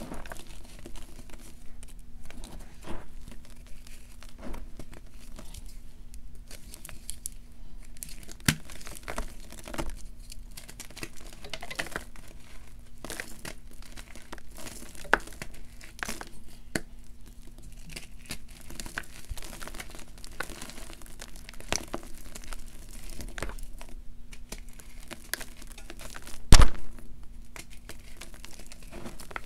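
Blocks of gym chalk crushed and crumbled between the fingers in a bowl of loose chalk powder: a steady run of irregular soft crunches and crackles, with one sharp, much louder crack about 27 seconds in.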